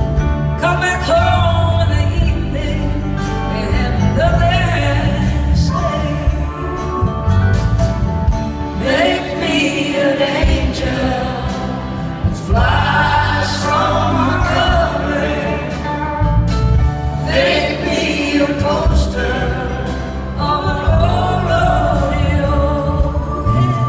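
Live blues band playing a slow song: acoustic and electric guitars over a steady bass line, with a lead melody that slides up and down.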